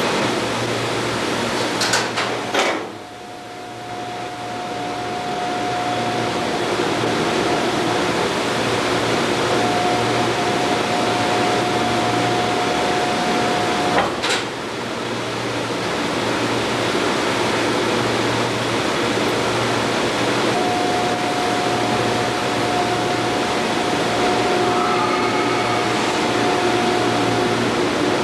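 Machinery of a Tower of Terror drop-lift hoist running with a steady hum. A steady high whine sounds while the cable drum turns, stops for several seconds in the middle, then returns. Sharp clunks come about two seconds in and again about halfway through.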